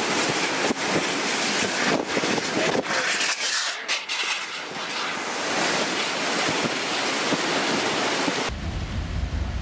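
Hurricane-force wind and driving rain blowing hard in gusts, with wind buffeting the microphone. Near the end the sound cuts suddenly to a duller, lower rumble.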